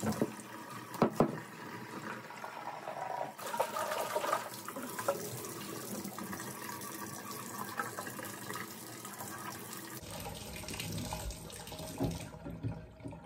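Water running from a bathtub tap and splashing into and through a plastic taillight housing as it is rinsed out, with a few short knocks as the taillight is handled.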